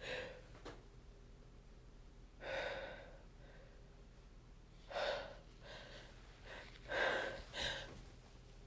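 A person taking several short, gasping breaths about two seconds apart, the breathing of a sneezing fit set off by dust, with a sneeze building.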